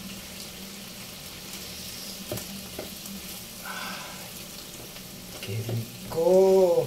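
Chicken and vegetables sizzling steadily in a hot pan as they are stirred with a wooden spatula, with a couple of light knocks of the spatula on the pan. A brief voiced sound near the end is the loudest moment.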